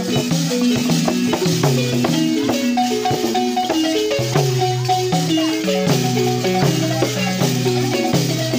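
Balafon (wooden xylophone) playing a quick, repeating melody of short struck notes, with drums beating along.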